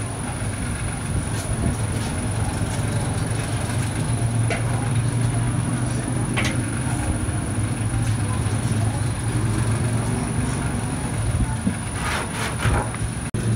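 Steady low mechanical drone with a constant faint high whine on top, and a few light clicks and taps near the end.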